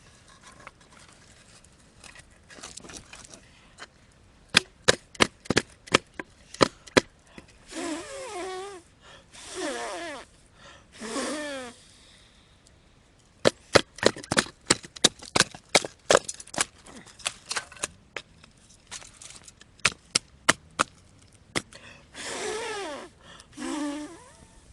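Sharp wooden blows in quick runs of several strikes, firewood being chopped or split for a campfire. Between the runs come a few short wavering vocal sounds.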